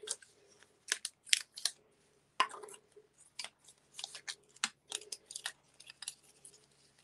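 Die-cut cardstock being handled and pulled free of a cutting die and clear cutting plate: a string of irregular crisp paper rustles and small clicks.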